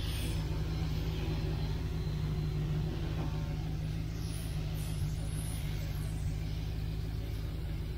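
1969 Chevelle's engine idling steadily, running again after sitting about six months.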